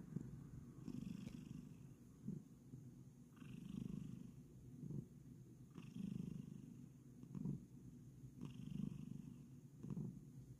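Bengal cat purring softly, a low purr that swells and fades with each breath, roughly every two and a half seconds.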